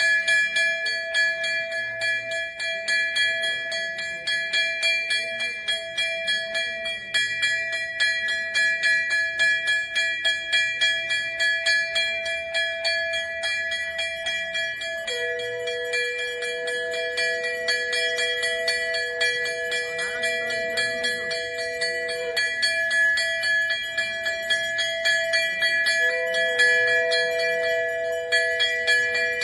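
Brass temple hand bell rung continuously with rapid strikes, its ringing tones sustained without a break. A second, lower steady tone joins about halfway through, drops out, and comes back near the end.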